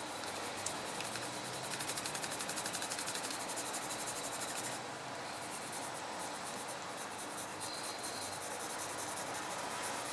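Red coloured pencil scratching on paper in quick back-and-forth hatching strokes. The strokes come fastest and most even from about two to five seconds in, then turn slower and less regular. A single sharp tick comes just under a second in.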